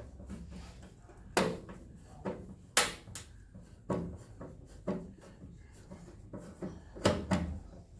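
Irregular sharp knocks and clicks of hand tools and bolts being handled while a tow bar is bolted up, about seven in all, the loudest a little under three seconds in and again near the end.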